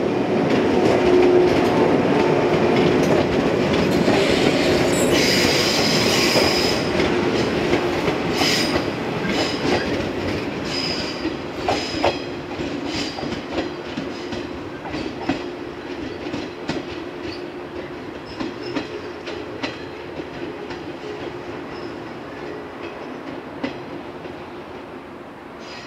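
JR West 115-series electric train moving away along the track: steady running hum with wheels clacking over rail joints and a high wheel squeal partway through, fading steadily as it recedes.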